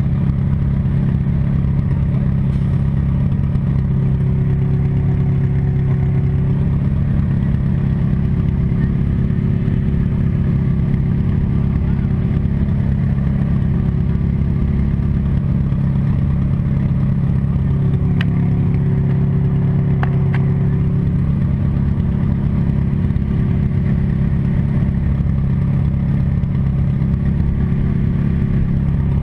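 Demolition derby car's engine running at a steady, unchanging speed, heard from inside the car.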